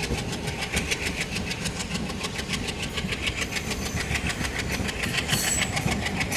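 WDM3 diesel-electric locomotive pulling a passenger train out of the station, its engine chugging in quick even beats as the coaches roll past. A brief high squeak comes about five seconds in.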